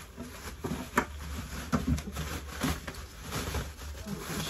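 Plastic bubble wrap crinkling and rustling as it is handled and pulled away from a packed item, with irregular crackles and clicks.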